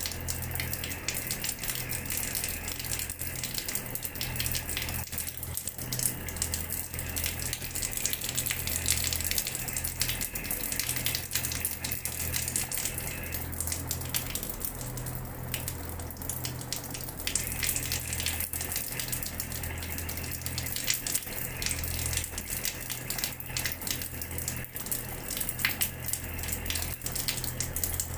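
Water from a tap running and splashing steadily onto a hard floor, with a constant spatter of small splashes and a low hum underneath.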